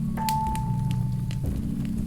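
Soft background music: one long held melody note over a low sustained chord, with the chord changing about a second and a half in. Scattered crackles of burning logs sound underneath.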